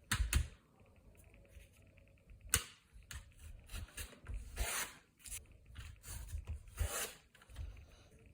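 Close-up handling sounds from making a wine-label fridge magnet by hand: a few sharp taps and clicks, two longer rubbing or scraping swishes, and low bumps as the materials are moved.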